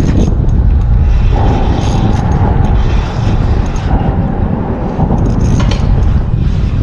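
A spinning reel being cranked to bring in a hooked fish, a freshwater drum, under a loud rumble of wind on the microphone. A steady whine comes in about a second and a half in and fades near the five-second mark.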